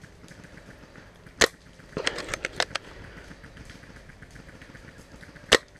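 Two sharp shots from a bolt-action spring airsoft sniper rifle, about four seconds apart, one about a second and a half in and the other near the end. A quick run of clicks follows the first shot as the bolt is worked.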